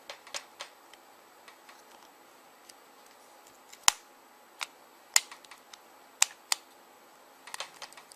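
Plastic back housing of a BlackBerry 9650 being fitted onto the phone: scattered small clicks and taps, the sharpest about four seconds in and a handful more over the next few seconds, as the clips snap into place.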